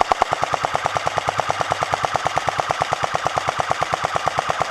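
Airsoft gun firing full-auto in one long, unbroken burst at an even rate of about twelve shots a second.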